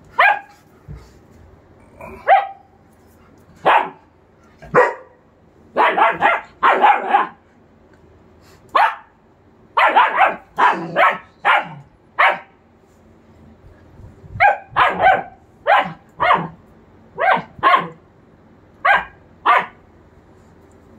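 German Shepherd puppy barking in short, sharp barks, singly and in quick runs of two to four, with short pauses between bouts.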